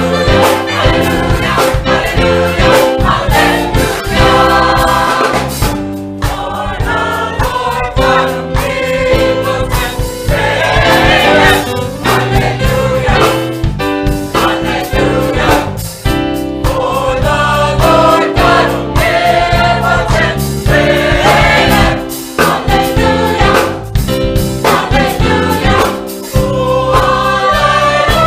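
A gospel choir singing with instrumental accompaniment and a steady beat underneath.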